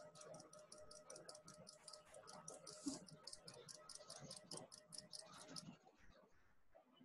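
Faint, rapid, even ticking, about six ticks a second, that stops near the end, over a faint steady tone.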